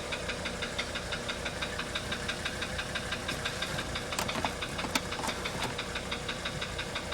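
Mercedes-Benz 300D five-cylinder diesel engine idling with a steady, rapid knock that the owner has not been able to diagnose. A couple of sharper clicks come about four and five seconds in.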